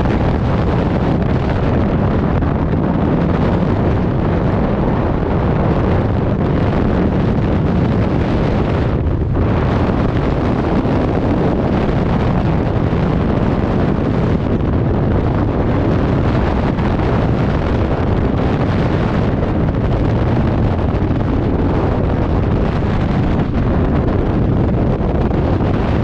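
Freefall wind rushing over a skydiver's camera microphone: a loud, steady roar of wind noise.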